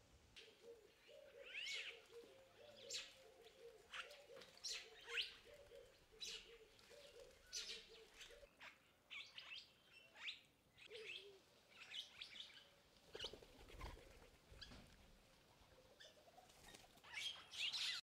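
African starlings calling faintly: a scattered run of short, sharp chirps and whistles, several in quick succession at times.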